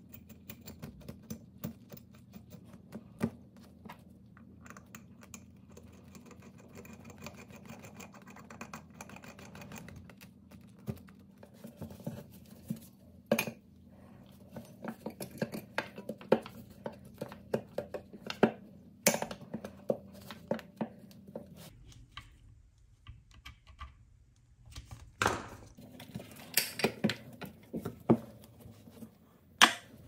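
Irregular light clicks, taps and scrapes of small metal parts handled and fastened by hand: brass screws and nuts fitted to an antique fire alarm's painted metal housing and a screwdriver working the terminals. A faint steady hum underneath stops about two-thirds of the way through.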